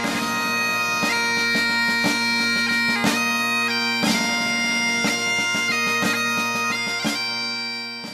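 Highland bagpipes playing a tune on the chanter over their steady drones, with rapid gracenote flourishes; the music fades out near the end.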